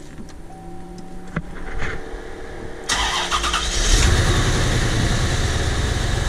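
1993 Corvette's freshly rebuilt LT1 V8 being cranked and catching about three seconds in, then settling into a rough idle with a rattle and a misfire that shakes the whole car.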